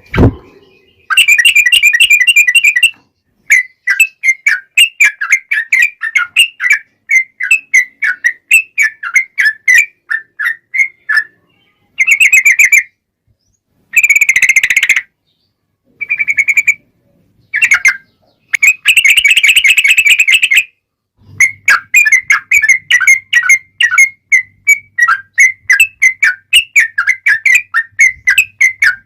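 Yellow-vented bulbul (trucukan) singing long, fast chattering runs of bubbly whistled notes, in bursts of a second or several, broken by short gaps.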